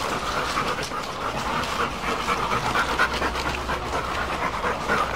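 Labrador retrievers panting steadily and rapidly.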